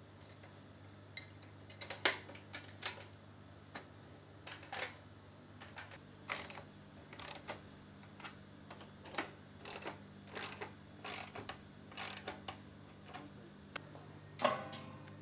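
Butt-fusion machine's clamp shells being closed on a PE pipe and their nuts tightened with a ratchet wrench: a string of sharp metal clicks and clacks, some half a second apart, some in quick pairs, over a steady low hum. A louder metal clunk comes near the end.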